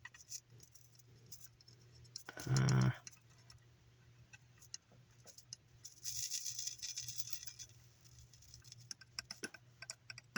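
Light clicking and rattling of small objects being handled, with a brief hiss about six seconds in and a quick run of clicks near the end. A short vocal sound about two and a half seconds in is the loudest moment.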